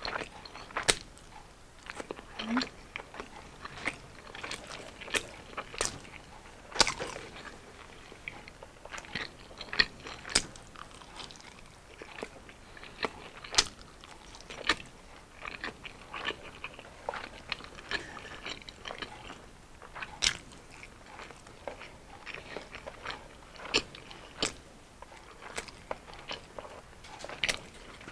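Close-miked eating: biting, chewing and crunching of deep-fried battered street food, with many sharp, irregular crunches and mouth sounds.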